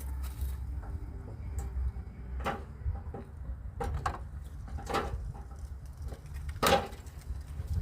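A handful of sharp knocks and clanks, the loudest near the end, over a low steady rumble.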